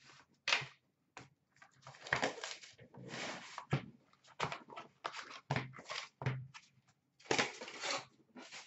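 Plastic wrap and cardboard packaging of a sealed trading card box being cut, torn and handled, crinkling and rustling in irregular bursts.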